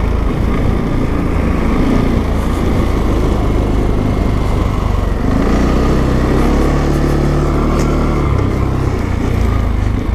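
CF Moto 520 L ATV's single-cylinder engine running while riding through snow, the revs climbing about halfway through and dropping back near the end.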